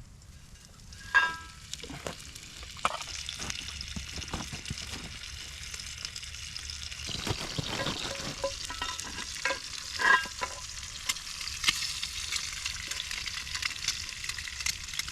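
Food frying in a hot pan, a steady sizzle that swells about a second in and grows fuller later, with a couple of sharp metal clinks of a utensil against the pan.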